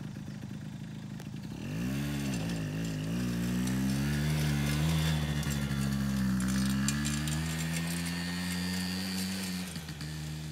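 Small youth four-wheeler (ATV) engine idling, then throttled up about two seconds in: its pitch rises and wavers as the quad pulls away, then holds fairly steady and eases off briefly near the end.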